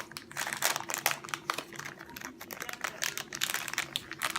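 A plastic toy wrapper being torn open and crinkled by hand, with a run of irregular crackles.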